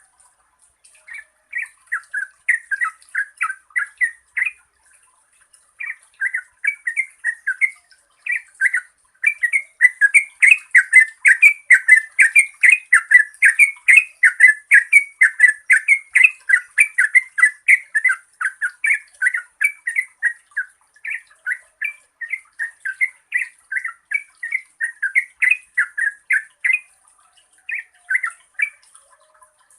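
Yellow-vented bulbul singing its long, rapid-fire bubbly song ("ropel panjang") of quick liquid notes, several a second. It comes in short phrases at first, runs unbroken and loudest through the middle, then breaks into looser phrases.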